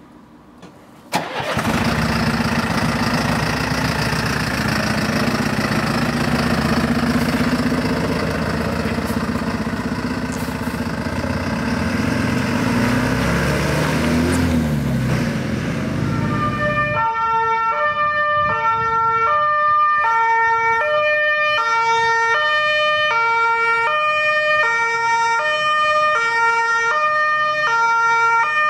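A fire truck's diesel engine starts abruptly about a second in and runs loud as the truck moves off, its pitch dipping and rising near the middle. About two thirds of the way through, the German two-tone siren (Martinshorn) takes over, high and low notes alternating about once a second.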